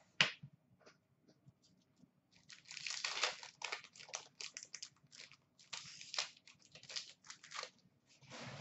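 A stack of trading cards being handled, the cards sliding and rubbing against one another in irregular rustling bursts, with a few light clicks.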